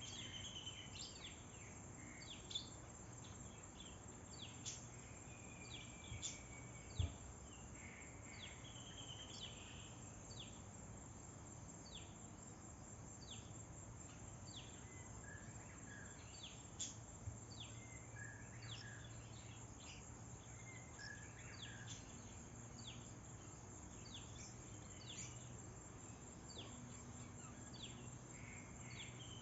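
Birds chirping with many short, quick downward-sweeping calls over a steady high insect drone, with a faint low hum underneath. A single sharp knock sounds about seven seconds in.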